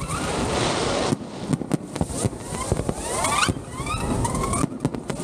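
Fireworks going off: a dense crackle, then sharp bangs, then several whistling fireworks rising in pitch, overlapping, from about two seconds in and again around four seconds in.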